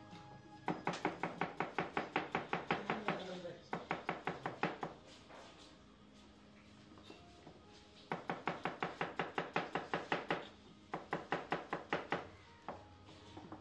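Knife rapidly chopping onion on a cutting board, about five strokes a second, in four runs with short pauses between them.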